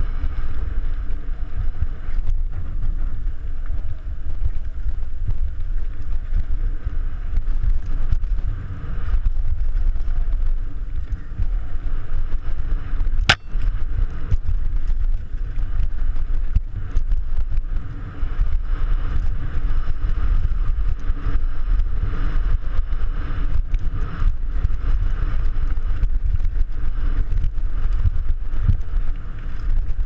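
Wind noise on the microphone of a mountain bike's action camera as the bike rolls fast down a dirt trail, with a steady low rumble and many small rattles and knocks from the bike over the ground. One sharp click midway.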